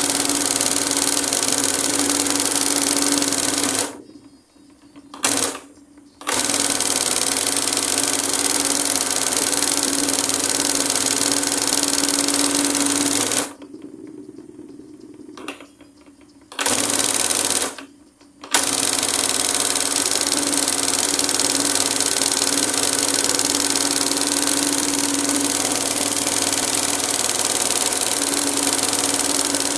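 Industrial embroidery machine running steadily as it couches gold cord onto fabric, with a constant hum under the rapid needle clatter. It stops abruptly twice, for a couple of seconds about four seconds in and for several seconds around the middle, then starts up again.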